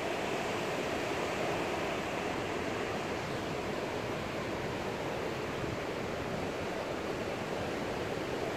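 A steady, even rushing noise with no distinct events or tones.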